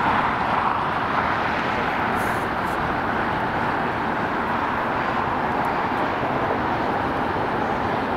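Jet aircraft engines across an airport, a steady, even roar with no clear rise or fall.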